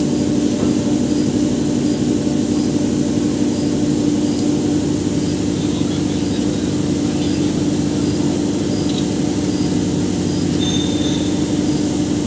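Impact pulverizer (hammer mill) for turmeric running with a steady, even hum.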